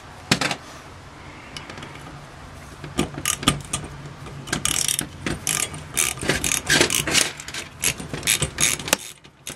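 Hand socket ratchet clicking in quick runs as it turns the power jet out of an Aisan two-barrel carburetor body. There is a single knock right at the start, and the clicking runs come about three seconds in.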